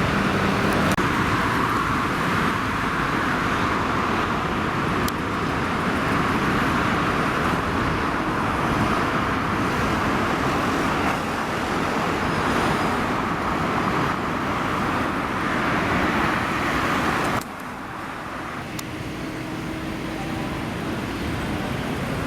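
Steady road-traffic noise, a continuous rush of passing vehicles, which drops suddenly to a lower level about two-thirds of the way through.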